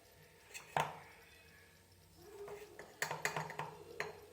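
A few light clinks and taps of a spoon against kitchen containers while turmeric is scooped: one sharp knock about a second in, then a quick cluster of small clicks near the end.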